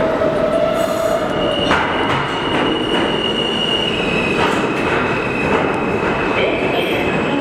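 New York City subway train at a station: continuous train noise with a steady whine that gives way, about two seconds in, to a higher steady whine.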